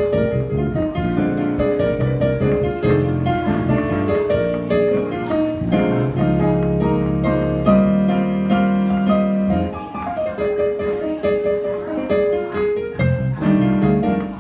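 Jazz piano playing chords and melody, with a held low note about eight seconds in.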